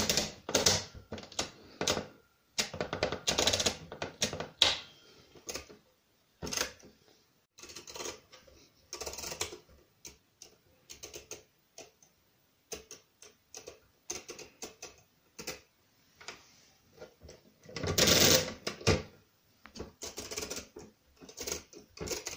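Brunsviga pinwheel mechanical calculator worked by hand: its register clearing knobs turned and the setting levers on the pinwheel drum moved, giving a run of irregular metal clicks and short ratcheting rattles, with the loudest rattle late on.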